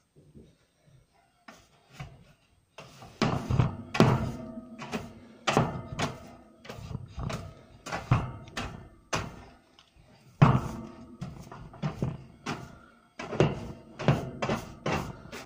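Music with a steady percussive beat and a held pitched tone under it, pausing for about a second midway.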